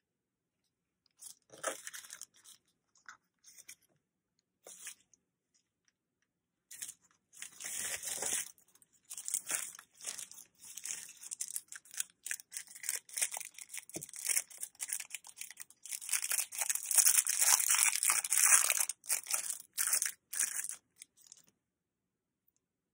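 Plastic packaging crinkling and rustling as it is handled. It comes in short bursts at first, then runs almost without a break for about fifteen seconds, is loudest a little past the middle, and stops shortly before the end.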